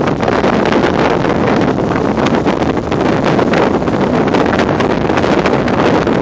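Strong gusty storm wind buffeting the microphone: loud, continuous rushing and rumbling with irregular gust hits.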